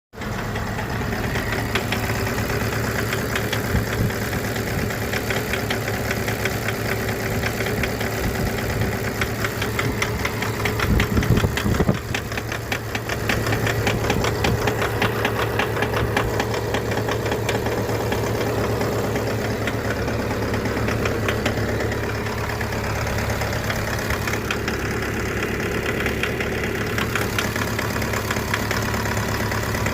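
Mitsubishi L200 engine running with a fast, steady ticking knock over the engine note: the bad sound it makes before repair. About a third of the way in there is a brief louder, rougher patch.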